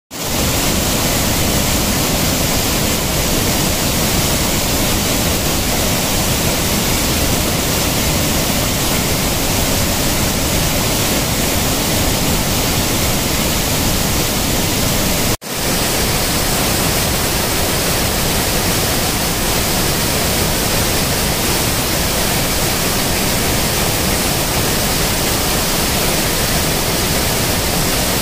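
Hogenakkal Falls on the Kaveri in flood, at about 35,000 cusecs: a loud, steady roar of water pouring over rock ledges. The sound drops out for a moment about halfway through, then resumes just as before.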